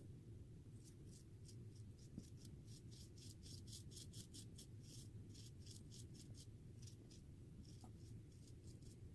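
Faint, crisp scratching strokes of a Feather Artist Club SS straight razor's blade cutting lathered stubble, several short strokes a second, thinning out after the middle.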